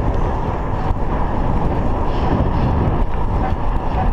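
Steady wind buffeting a chest-mounted action camera's microphone while riding a mountain bike on asphalt, over the low rumble of the tyres rolling on the road.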